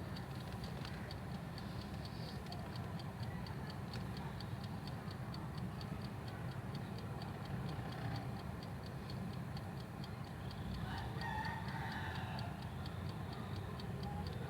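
Countertop halogen convection oven running: its timer ticks steadily, about three ticks a second, over the low hum of its fan and heater. A rooster crows in the background about eleven seconds in.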